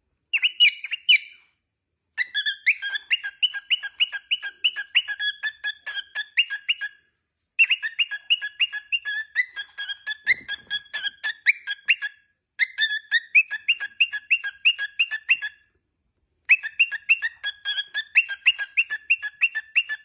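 Cockatiel chattering in rapid runs of short chirps, about six a second, flipping between two pitches. The chatter comes in five bursts separated by short pauses.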